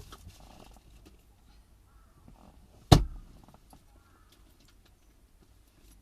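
A single loud thump about three seconds in, among faint clicks and handling rustle.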